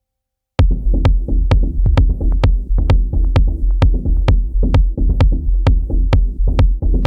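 Electronic beat programmed on Native Instruments Maschine 2: after about half a second of silence it kicks in with a steady deep sub-bass and sharp drum hits about twice a second.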